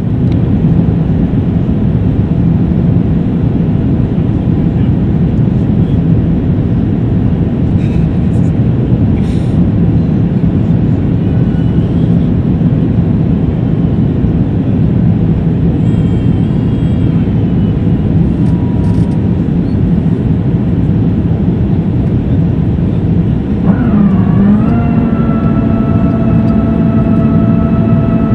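Steady cabin roar of an Airbus A350-1000's Rolls-Royce Trent XWB engines and the airflow, heard from inside during the climb. About four seconds before the end, a steady multi-toned whine sets in after a brief dip in pitch.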